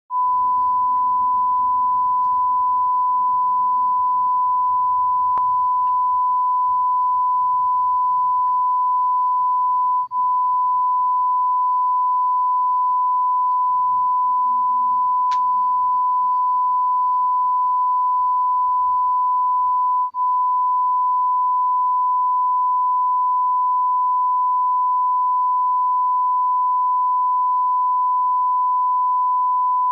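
Television colour-bars test tone: one steady, loud, high-pitched beep held at a constant pitch, the off-air 'no signal' tone. It cuts out for an instant twice, about ten and twenty seconds in, where the loop restarts.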